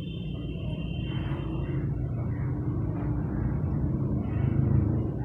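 Low rumble of a passing motor vehicle, building up and loudest near the end. A thin high tone fades out in the first two seconds.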